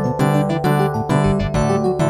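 Polyphonic synthesized ringtone of a Motorola V741 phone, played back through the MidRadio synthesizer software: a keyboard-like melody and chords over bass notes in a steady, quick rhythm.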